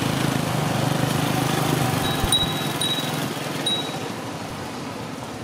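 A motor running steadily, with a low hum that fades over the last couple of seconds. A few short, high chirps sound about two to four seconds in.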